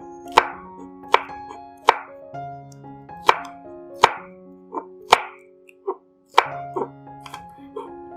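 Knife chopping on a cutting board: separate sharp strokes, roughly one every three-quarters of a second with a short pause just before the end, over background music with held notes.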